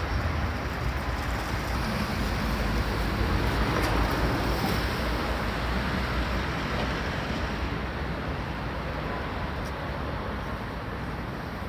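Road traffic passing: a steady wash of tyre and engine noise with a low rumble, swelling about four seconds in and then easing off.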